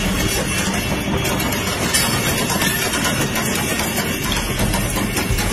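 WAG-12B 12,000 hp electric freight locomotive passing on the track: a steady low rumble and hum from its running gear.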